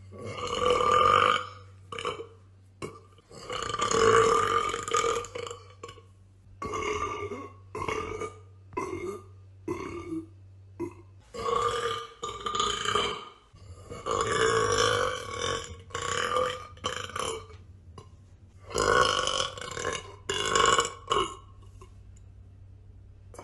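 A woman burping over and over: some long drawn-out burps of a second or two, and runs of short quick ones between them, stopping about two seconds before the end.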